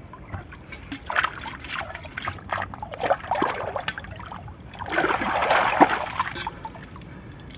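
Hands groping and splashing in shallow, muddy canal water while feeling for fish, with scattered small splashes and a denser stretch of splashing about five seconds in that lasts about a second and a half.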